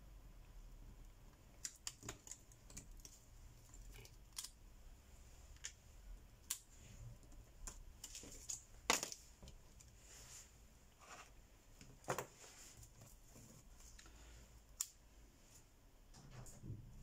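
Scattered light clicks and taps of a precision screwdriver and small plastic parts on a smartphone as it is taken apart by hand, irregularly spaced, the sharpest about nine seconds in and others near twelve and fifteen seconds.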